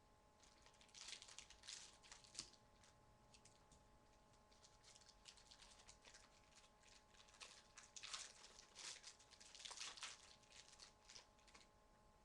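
Faint crinkling and rustling of a sealed trading-card pack being torn open and the cards handled, louder about a second in and again around eight to ten seconds in.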